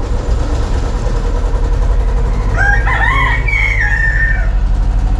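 A rooster crows once, about two and a half seconds in, a single call of about two seconds that rises, holds and falls. Under it an engine runs steadily with a low, evenly pulsing hum.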